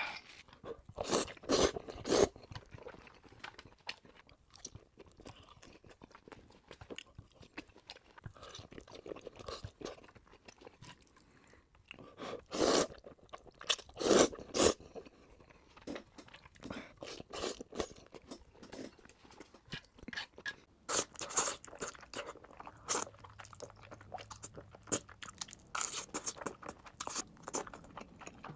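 A person eating crunchy food: loud crunching bites about two seconds in and again around twelve and fourteen seconds, with quieter chewing and crackling between.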